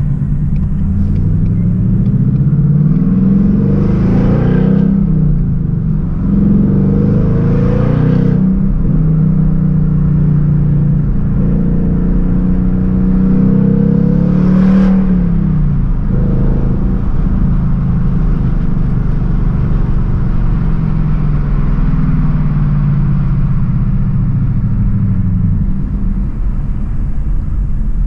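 2019 Ford Mustang GT's 5.0-litre V8 heard from inside the cabin, pulling hard through the gears. The engine note climbs and drops sharply at gear changes about four, eight and fifteen seconds in, then settles to steadier cruising and falls off as the car eases back near the end.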